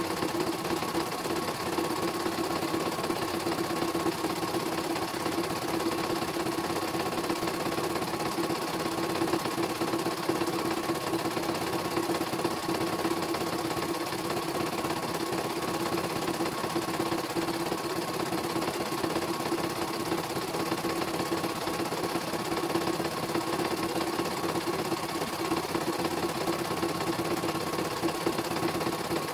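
CNY E900 computerized embroidery machine stitching a design: the needle runs in rapid, even strokes over a steady hum while the hoop shifts, without stopping. It runs smoothly, with no hitches, after a cleaning and a new power supply.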